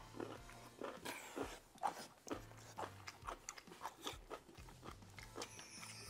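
Close-miked eating sounds: chewing mouthfuls of curry and rice, with a run of short wet mouth clicks and smacks, the sharpest about two seconds in.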